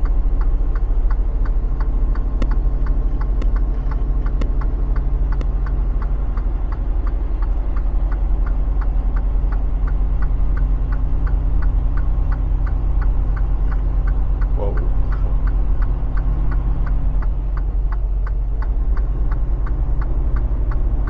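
Semi-truck diesel engine running steadily under way, heard from inside the cab as a deep drone, with a regular ticking about three times a second. There is a brief squeak about two-thirds of the way through.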